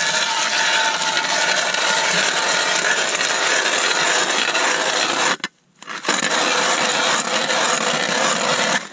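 Ice auger drilling a test hole through lake ice, a steady grinding scrape of the blades cutting ice, checking how thick the ice is. It breaks off briefly about five and a half seconds in, then carries on.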